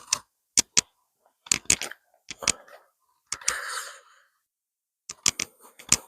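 Sharp cracks coming in small clusters, with a brief rustle about three and a half seconds in: dry twigs and undergrowth crackling.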